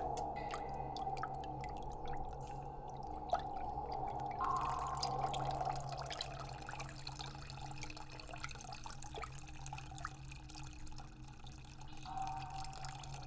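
Sound-designed water drips, many small irregular drops, over a steady low drone; a higher sustained tone comes in about four seconds in and fades out a few seconds later.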